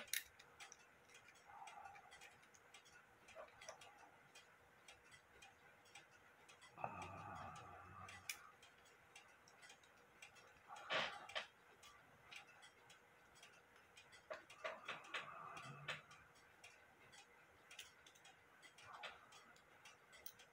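Faint ticking and light metallic clicks from a Warmink Dutch clock movement held in the hands, its escapement running out of the case while the chime-side levers are worked by hand. A few louder handling knocks and rattles come at intervals.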